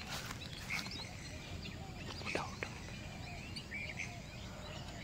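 Outdoor ambience: small birds chirping faintly over a low steady rumble, with a few soft clicks.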